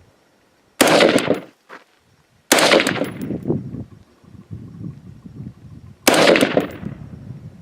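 Three single shots from a bullpup rifle, irregularly spaced: about a second in, again near two and a half seconds, and again after six seconds, each sharp crack trailing off in an echo.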